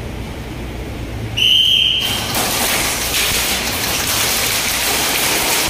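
A short, steady high-pitched tone about a second and a half in, then dense, continuous airsoft gunfire that grows louder about a second later.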